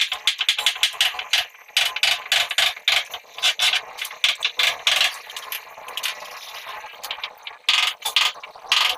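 Hand-tool work at a wall: an irregular run of sharp metallic clicks and clinks, several a second, easing off for a couple of seconds past the middle before picking up again near the end.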